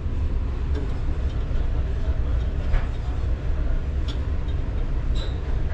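Steady low mechanical rumble, with a few faint light clicks about three, four and five seconds in.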